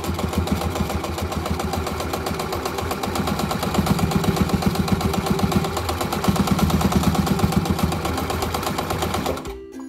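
Old domestic electric sewing machine running steadily, its motor hum under a fast, even clatter of the needle stitching through layers of fabric. It stops abruptly near the end.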